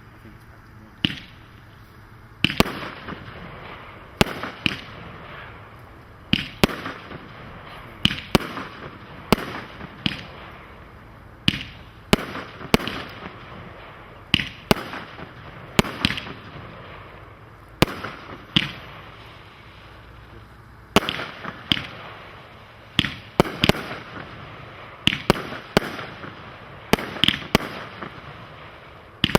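Brothers Pyrotechnics 'The Big Show' 83-shot single-ignition firework cake firing: sharp bangs about once or twice a second, with a steady hiss between them.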